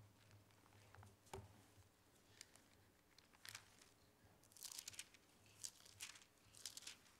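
Faint rustling and crinkling of thin Bible pages being turned, in several short bursts over the second half, after a single click about a second and a half in. A low steady hum runs underneath.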